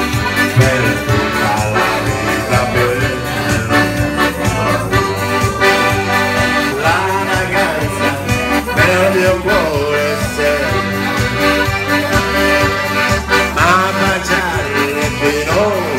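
Piano accordions playing a traditional Italian folk tune: a melody of held notes over a steady, pulsing bass beat.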